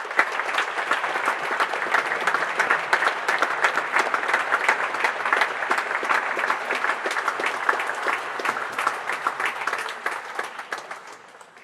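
An audience applauding: dense, steady clapping that starts suddenly and dies away over the last couple of seconds.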